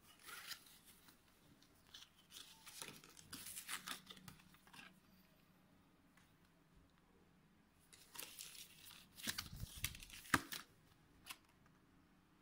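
Hands handling cardboard hang tags and black Lycra cycling shorts: irregular spells of paper and fabric rustling and crinkling, the last one ending with a sharp tap.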